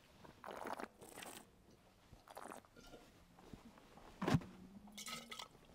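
Wine taster slurping red wine, drawing air through it in the mouth and swishing it, heard as a few short hissing, wet bursts, with a sharp thump about four seconds in.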